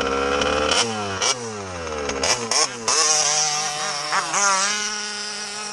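Small two-stroke engine of an MCD XR5 minimoto revving in several quick blips that rise and fall in pitch, then settling to a steadier run with one more short rev. It is misfiring quite badly.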